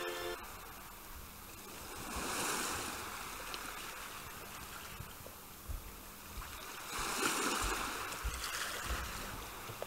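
Sea-surf sound effect: waves washing in as two slow swells of hiss, one about two and a half seconds in and one about seven and a half seconds in. A held music note fades out just after the start, and a few soft low thumps come in the second half.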